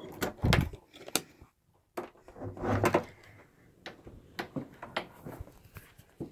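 Handling noise: a string of sharp clicks and knocks, with two dull rubbing thuds about half a second in and about three seconds in, as the phone recording is moved about.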